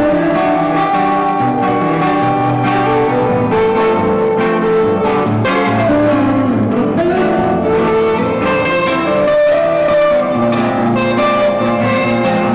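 Instrumental guitar music with held notes over steady chords, playing at an even level throughout.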